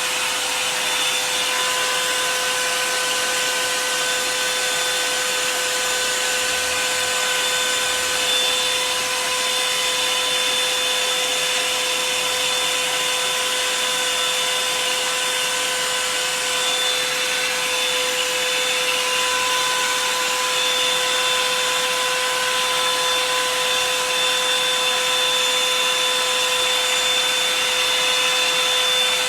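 Hand-held hair dryer running steadily: a constant whine over rushing air, unchanged throughout.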